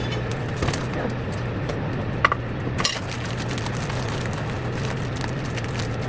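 A spoon packing brown sugar down into a measuring cup: a few light clinks and scrapes over a steady low hum.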